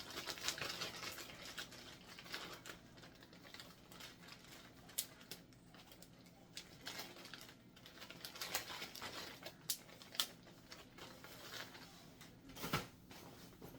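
Irregular light clicks and rustling of gear being handled and moved in and out of a bag, with a sharper knock near the end.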